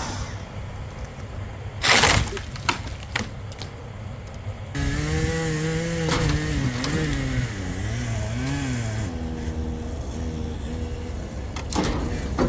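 A sharp, loud crack about two seconds in, followed by a few lighter knocks. Then, from about five seconds in, a chainsaw engine runs with its pitch rising and falling unevenly.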